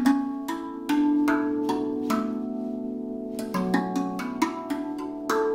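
RAV Vast 2 steel tongue drum tuned to B Celtic, played by hand: single notes struck one after another, each ringing on and overlapping the next. After about two seconds there is a pause of over a second, then a quicker run of notes.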